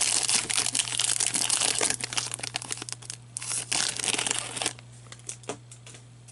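Foil trading-card pack wrapper being torn open and crinkled by hand, a dense crackling that stops about two-thirds of the way in, followed by a few soft clicks as the cards are handled.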